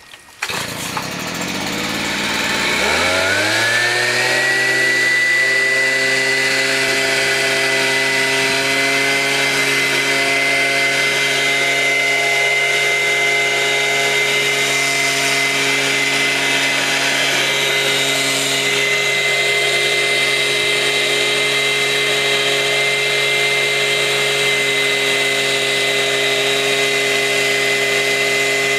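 Stihl handheld leaf blower's two-stroke engine coming up to full throttle, its pitch climbing over the first few seconds. It then runs steadily at high speed with a steady high whine.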